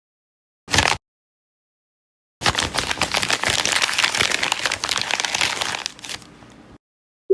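Crackling, snapping sound effects: one short burst, then after a pause a dense run of rapid sharp crackles lasting about four seconds that fades out at the end.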